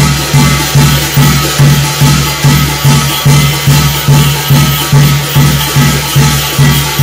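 Korean shamanic gut ritual music: a drum beaten in a steady, even pulse of about two and a half strokes a second, under a constant high jingling shimmer of percussion.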